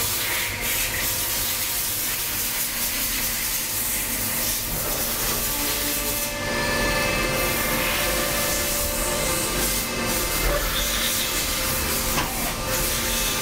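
Cincinnati Milacron Sabre 750 vertical machining center running, a steady hiss with several whining tones; a higher whine joins about halfway through.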